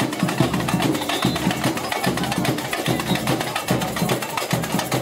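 Street drum band playing a fast, steady rhythm on marching snare and bass drums, many strokes a second.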